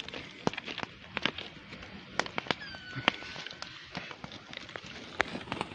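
Wood-fire embers crackling, with sharp, irregular pops a few times a second, as green peppers roast directly on the coals. A faint whistle-like call falls and then levels off near the middle.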